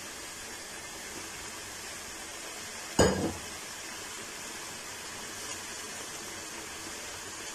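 A steel pot of vegetable broth simmering on a gas flame turned high, giving a steady hiss, with one sharp knock of a utensil against the steel pot about three seconds in.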